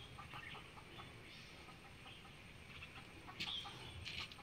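Faint clucking of chickens in the background, with a light click about three and a half seconds in.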